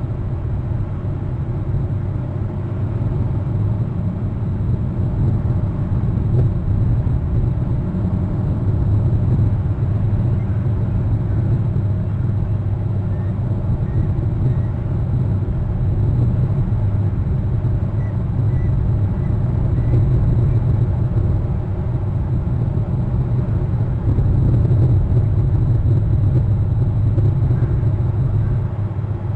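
Steady low rumble of wind buffeting an outdoor nest-camera microphone.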